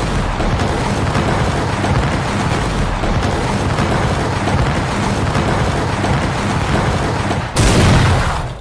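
Anime punch-rush sound effect: a dense, unbroken barrage of rapid punch impacts for about seven and a half seconds, ending in a louder final blast that cuts off abruptly.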